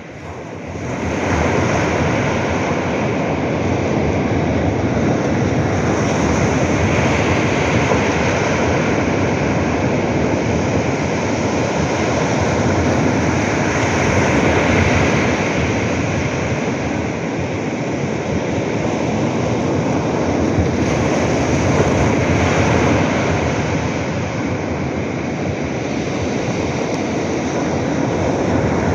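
Waves breaking on a sandy beach: a continuous wash of surf that swells and eases slowly.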